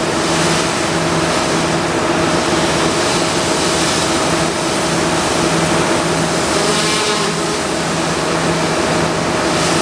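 Ultra-high-pressure water jet blasting paint off steel: a loud, steady hiss of the jet over a steady machine hum.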